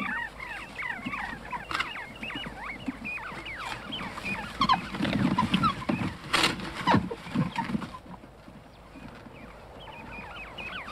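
Many small birds chirping rapidly in short gliding calls: the live quails in a wooden cage. About halfway through there is a low rumble with a few knocks.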